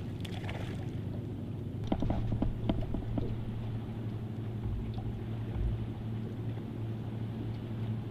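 Boat motor running steadily with a low hum, with a few short knocks about two to three seconds in.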